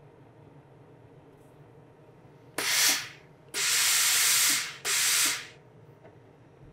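A steam iron pressing a folded canvas corner gives three bursts of steam hissing: a short one, then a longer one of about a second, then a shorter one just after it.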